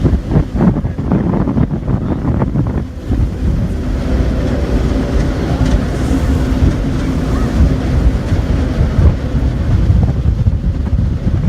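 Jet boat's engine running steadily under way, with wind buffeting the microphone.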